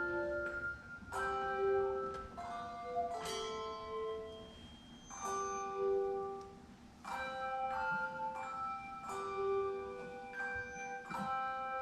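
Handbell choir ringing a slow piece: chords of bells struck every second or two, each left to ring on.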